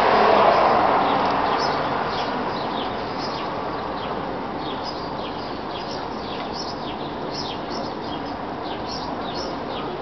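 Hummingbirds chirping: a run of short, high, falling chirps, several a second. A rushing background noise fades away over the first few seconds.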